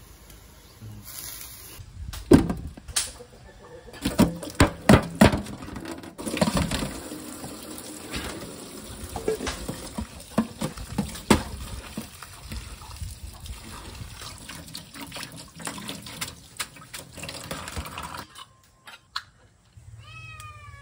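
Kitchen clatter of bowls and utensils, then water poured from a glass bowl over rice noodles in a metal colander in a steel sink, splashing steadily with scattered clicks. A kitten meows twice at the very end.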